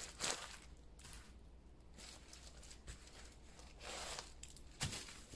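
Tissue paper rustling and crinkling in several short bursts as it is pulled out of a leather handbag, with a brief sharp knock near the end.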